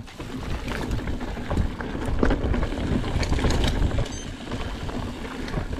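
Mountain bike riding down a rocky dirt trail: tyres crunching over loose stones and the bike rattling and clattering with many short knocks over a steady low rumble.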